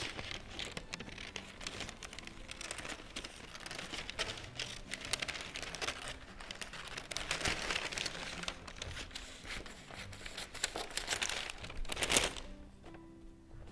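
Scissors snipping through thin pattern paper, the loose sheet crinkling and rustling as it is turned and cut along a curve. A louder rustle comes about twelve seconds in, after which it goes much quieter.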